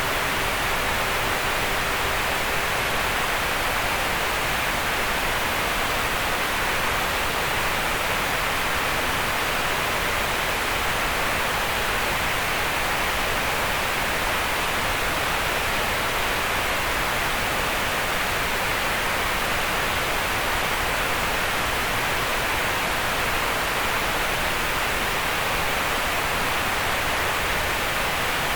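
Synthetic green noise: a steady, even hiss centred in the mid frequencies, without rhythm or change. A faint held tone fades out in the first few seconds.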